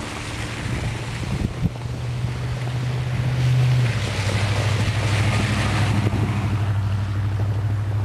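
A vehicle engine humming steadily under a hiss of wind noise. The engine note steps down to a lower pitch about four seconds in.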